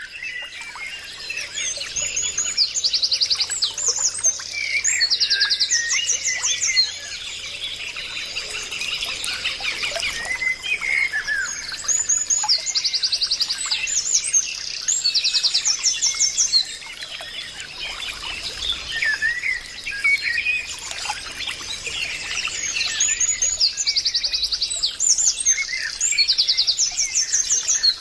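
Many small birds chirping and trilling together, with bursts of rapid high trills that recur about every ten seconds, over a faint steady high tone.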